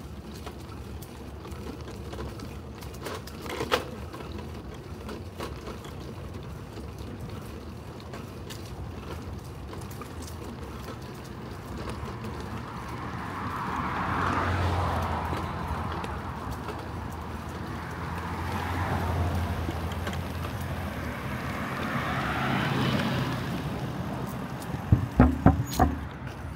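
Bicycle rolling along a paved path while cars pass on the adjacent road, three of them swelling up and fading away in turn. Near the end comes a quick run of sharp rattling knocks as the bike jolts over the edge of the path onto the car park surface.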